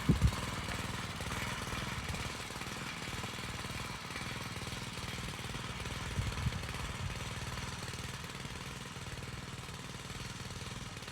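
Small engine of a land tiller running steadily with a fast low chugging, with a couple of brief louder knocks, one at the start and one about six and a half seconds in.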